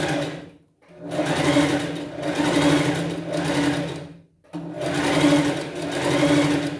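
Sewing machine running in three short runs, with brief stops about a second in and about four seconds in, stitching a folded narrow rolled hem in fabric.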